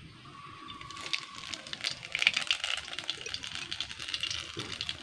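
Spoon clinking and scraping in a small glass bowl as it scoops up black cumin (nigella) seeds, a quick run of small clicks and rattles starting about a second and a half in.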